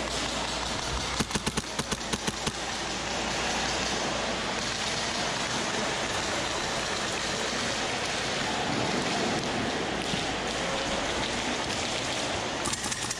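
A rapid string of about ten airsoft gun shots about a second in, over a steady hiss of background noise, with a few fainter shots near the end.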